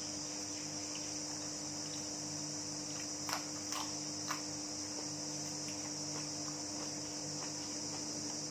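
Steady high-pitched insect chirring, like crickets, over a steady low hum, with three light clicks about three to four seconds in.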